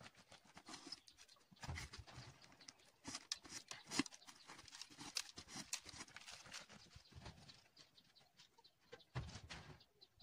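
Arrows being pulled out of a cardboard box target, with irregular scraping, rustling and knocks and footsteps on dirt; the loudest knock comes about four seconds in.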